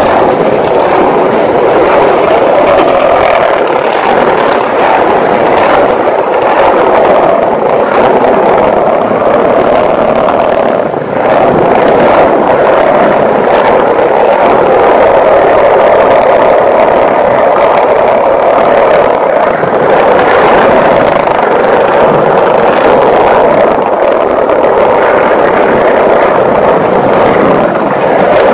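Skateboard wheels rolling over paving and concrete, a loud, steady rolling noise with a brief dip about eleven seconds in.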